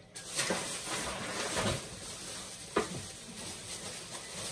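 Rustling and handling noise from items being rummaged through, with a sharper knock nearly three seconds in.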